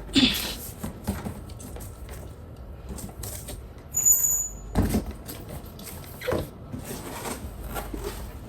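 Knocks and scrapes of kitchen utensils being handled and set up, with a brief high squeak about four seconds in.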